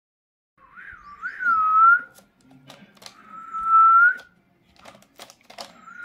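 Clear whistling in long notes, each about a second or more, held near one pitch and rising slightly at the end. The first note wavers up and down at its start; a third note begins near the end. Between the notes come a few short sharp clicks.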